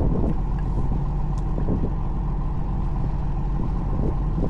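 Fishing boat's engine running steadily, a low even hum, with a few faint knocks.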